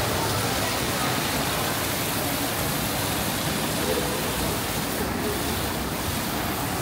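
Fountain water falling and splashing down a stone cone, a steady rushing hiss.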